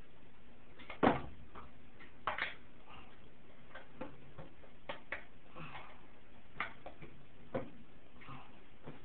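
Irregular clicks and clinks of metal hand tools being handled in a toolbox drawer, with a louder knock about a second in.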